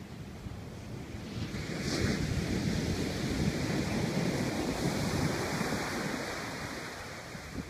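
Atlantic surf breaking on a sandy beach. A wave crashes about a second and a half in, and its rushing wash stays loud for a few seconds before easing off as the foam spreads up the shore.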